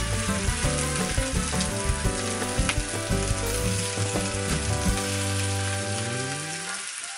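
Chicken thighs frying in olive oil in a frying pan: a steady sizzle with scattered pops of spattering oil.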